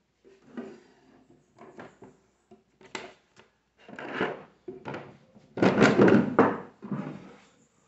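Wooden drawer of a TV stand sliding open and shut, with objects inside shifted about by hand. The loudest stretch of wooden sliding and knocking comes a little past halfway.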